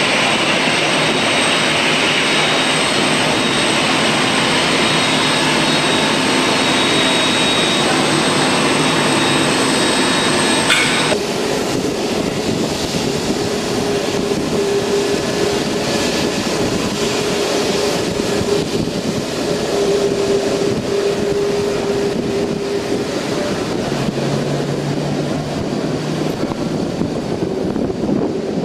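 Jet airliner engines at taxi power. First an Airbus A320-type twinjet's high, steady whine over the rush of its engines. About 11 seconds in this cuts to the lower, steadier hum of a widebody twinjet taxiing past close by.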